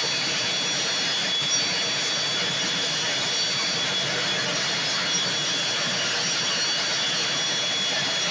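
Aircraft turbine engine running steadily: a constant rush with a steady high-pitched whine.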